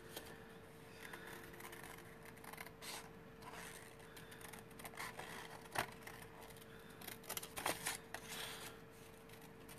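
Quiet room with a faint steady hum, broken by a few soft clicks and light scrapes of small objects being handled on a desk, two of them sharper at about six seconds in and again near eight.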